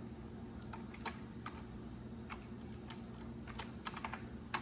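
Keys being typed on the Macintosh SE/30's keyboard: about a dozen uneven keystrokes entering a name, with the last one near the end the loudest.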